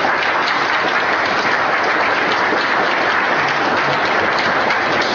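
Audience applauding: the steady clapping of many hands.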